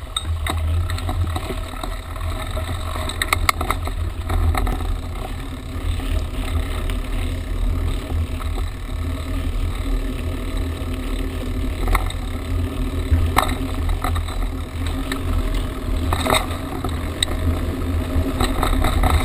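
Mountain bike ridden over a sandy dirt trail: steady wind rumble on the handlebar microphone with tyre and trail noise, and a few sharp knocks and rattles from the bike over bumps.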